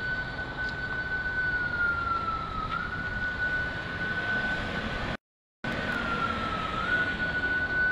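Emergency vehicle siren holding a high steady tone that sags slowly in pitch and snaps back up about every four seconds, over the noise of vehicles driving past. The sound cuts out completely for about half a second, about five seconds in.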